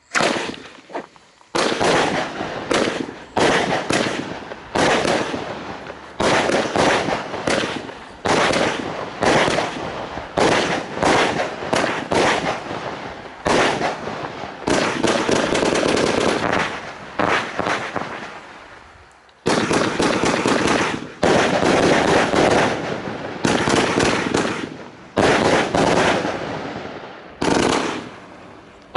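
A 49-shot consumer fireworks battery (Funke Ortega cake) firing shot after shot in quick succession: sharp launch thumps and bursting bangs. Firing starts about a second and a half in, pauses briefly about two-thirds through and again near the end, then picks up again.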